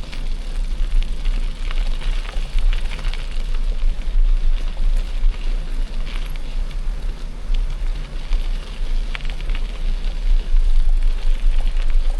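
Mountain bike rolling over a gravel forest road: tyres crunching on loose stones, with scattered clicks and rattles from the bike, over a steady low rumble.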